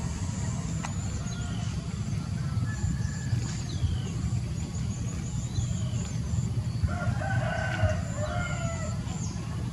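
A steady low rumble under repeated high chirps and short falling whistles. About seven seconds in comes a drawn-out animal call lasting about a second and a half.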